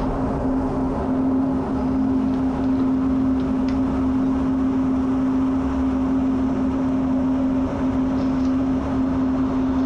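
F-16 cockpit noise in flight: steady jet engine and airflow noise with a constant low hum.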